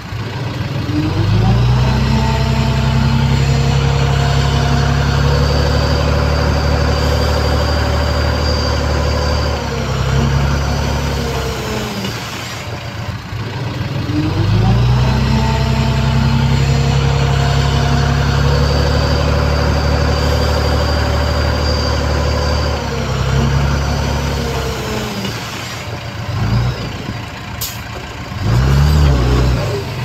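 Heavy earthmoving machine's diesel engine working under load: the revs climb, hold steady for about eight seconds and drop back, then climb and hold again for about eight seconds. Near the end there is one more short burst of revs.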